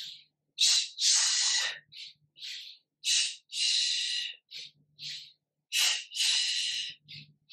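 A woman breathing loudly and rhythmically through a paced yoga breathing exercise: a short sharp breath followed by a longer breathy one, three times about every two and a half seconds, with fainter short breaths between.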